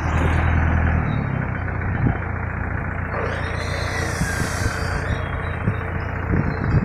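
A motorcycle engine running close by, its low hum strongest in the first second, then steady engine and street noise. A rushing hiss swells in about three seconds in and fades out around the five-second mark.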